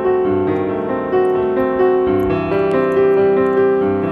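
Background piano music: a melody of held notes changing about every half second to second.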